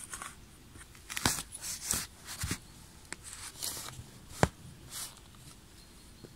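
Steel shovel blade chopping and cutting into sandy forest soil and roots, about half a dozen crunching cuts, the loudest about four and a half seconds in.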